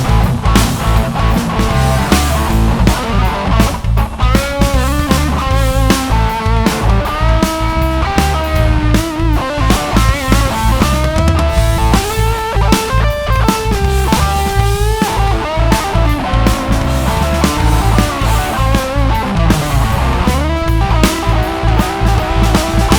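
A rock band playing at a sound check: electric guitar lead lines over a drum kit, with heavy low end.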